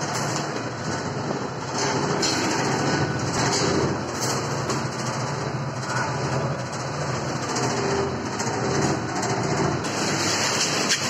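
Electric-motor, belt-driven corn thresher running steadily, its drum churning corn kernels with a dense, even clatter; the clatter grows brighter near the end as corn is pushed into the hopper.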